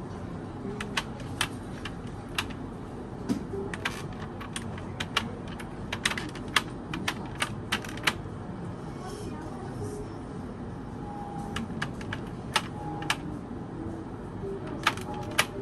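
Irregular sharp clicks and taps over a steady background noise, with a lull in the clicks around the middle.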